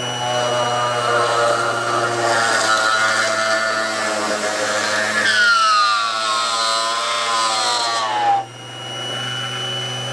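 Bench drill press running at about half speed, its bit boring slowly down into a wine cork. A steady motor hum carries throughout; about five seconds in a higher whine sets in and falls steadily in pitch, then stops abruptly about eight seconds in while the motor hums on.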